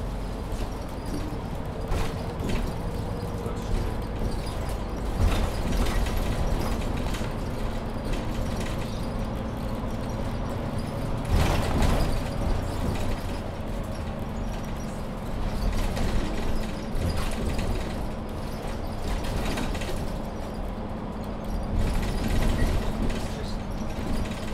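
Mercedes-Benz Citaro C2 Ü Hybrid city bus with Voith automatic gearbox driving, heard from on board: a steady low drivetrain drone and road rumble, with a few knocks and rattles from the body. A steady hum comes in about halfway through.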